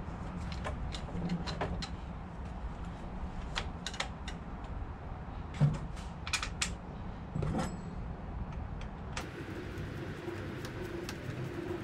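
Scattered light clicks and knocks of plastic and metal parts being handled and fitted as the Stihl HLA 65 pole hedge trimmer's cutting head is lined up on its shaft, with a few louder knocks around the middle, over a faint steady low hum.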